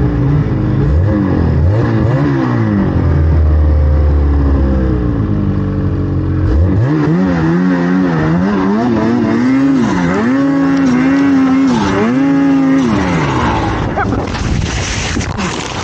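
Snowmobile engine revving up and down over and over as the sled is ridden through deep powder, with repeated throttle rises and drops. Near the end the engine note falls away and a rushing, hissy noise takes over.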